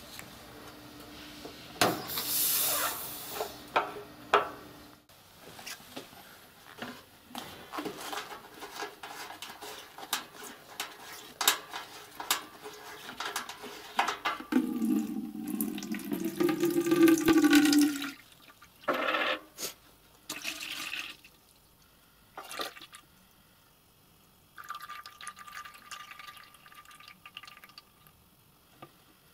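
The solution tank cap of an IGEBA TF35 thermal fogger is unscrewed, and a short hiss of air escapes as the tank decompresses. Plastic and metal handling clicks follow. Then residual liquid pours from the tank into a plastic bucket for a few seconds, the pitch of the filling sound shifting as it runs.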